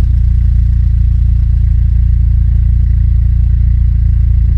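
2005 Saab 9-5 Aero's 2.3-litre turbocharged four-cylinder engine idling steadily and smoothly, purring like a kitten with a freshly replaced air filter.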